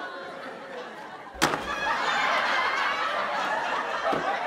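A cream pie smacks into a man's face with one sharp splat about a second and a half in, followed by steady laughter.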